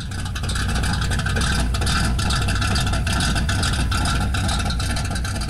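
A car engine running at a steady speed, loud and even, with a fast rumbling exhaust pulse.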